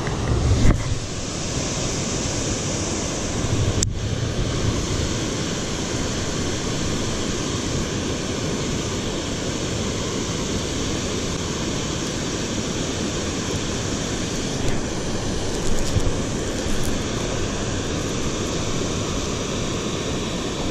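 Steady rush of river water, with low rumbles of wind on the microphone near the start and a single sharp click about four seconds in.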